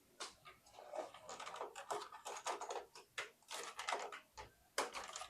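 Quick irregular clicks, taps and rattles of small hard parts being handled while a monitor mount is put together, several a second with short pauses.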